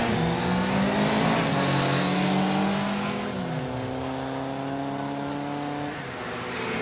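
Racing motorcycle engines running at high revs as the bikes race, several engine tones at once; the strongest drops in pitch about three and a half seconds in.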